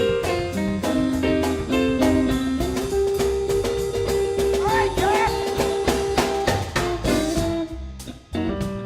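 A blues band of drums, bass, keyboards and guitar playing with a steady drum beat. A long held note runs through the middle, with sliding bends about five seconds in.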